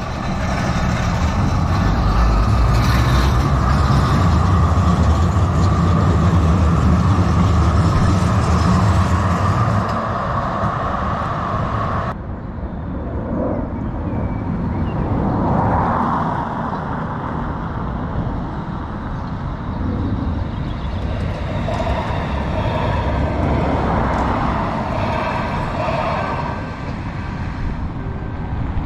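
Street traffic beside a tram line: a heavy vehicle passes close by, loud and steady with a constant whine, for about the first ten seconds. About twelve seconds in the sound cuts abruptly to quieter road traffic with vehicles passing.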